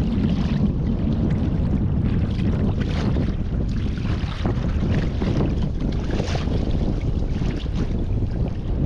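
Wind buffeting the microphone on a fishing kayak at sea, a steady low rumble, with water lapping and splashing around the boat.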